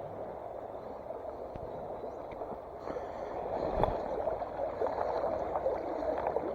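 Running water gurgling steadily, louder from about three seconds in, with a soft thump near four seconds.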